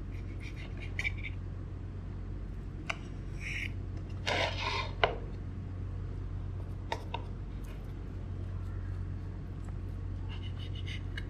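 Table knife cutting through egg bread on a ceramic plate: a few short scrapes and clicks of the blade against the plate, the loudest about four seconds in, over a steady low hum.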